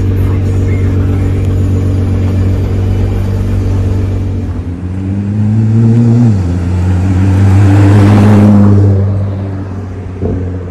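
Nissan GT-R R35's 3.8-litre twin-turbo V6 idling steadily. About five seconds in it revs up as the car pulls away: the note rises, drops suddenly once as the gears change, then rises again at its loudest and fades as the car drives off.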